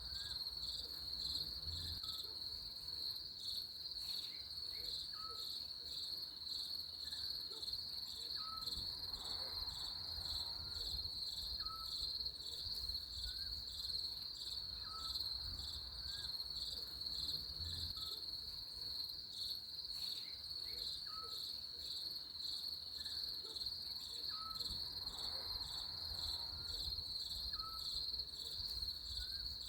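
Crickets chirping in a steady, continuous pulsing trill, with a faint short chirp repeating about every second and a half beneath it.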